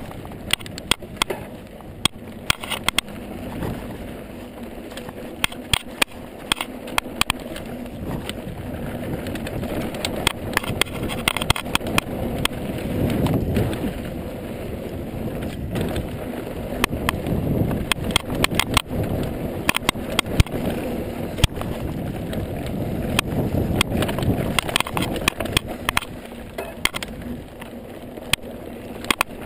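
Ibis Mojo HD mountain bike riding fast down a dry dirt trail: steady tyre noise on loose dirt and gravel with frequent sharp clicks and rattles over bumps. Wind rushes over the microphone in swells a few times near the middle and later.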